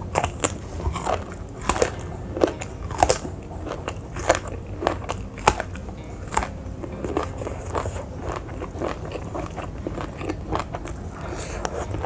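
Close-miked chewing and biting of crunchy raw vegetables: crisp crunches come irregularly, about one or two a second, over a low steady hum.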